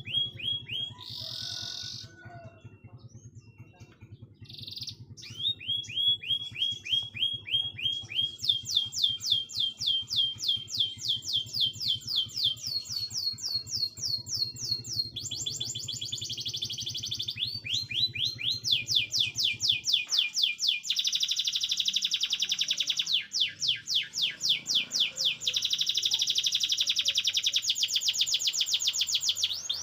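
Domestic canary singing in long rolls of rapid, evenly repeated notes, each phrase holding one note type before switching to another pitch and speed. A low steady hum runs underneath and stops about two-thirds of the way through.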